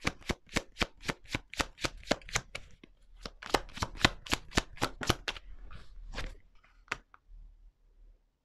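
A deck of tarot cards being shuffled by hand: quick, even card-on-card clicks about five a second. After about five seconds they thin out, and they stop about seven seconds in.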